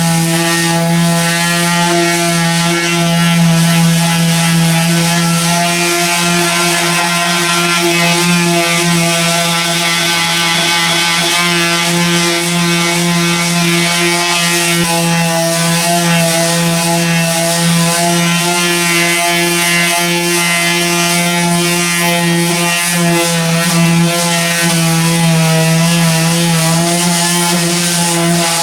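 Power sander running steadily against a car body panel, rubbing back old sun-baked paint: a continuous, even-pitched motor drone whose pitch and level waver slightly as it works.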